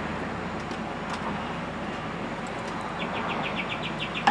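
Steady outdoor background noise like distant road traffic. About three seconds in, a small bird starts a rapid, high trill of about eight chirps a second.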